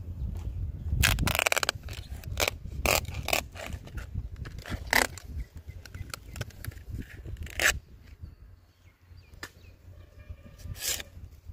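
Tapping knife scraping and cutting into the fibrous flower stalks and leaf bases at the crown of a toddy palm: a run of separate rasping strokes, densest about a second in, then sparser.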